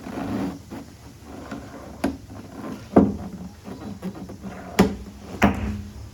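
Four sharp knocks on the Kia car door's panel during paintless dent repair, some with a short low ring after them.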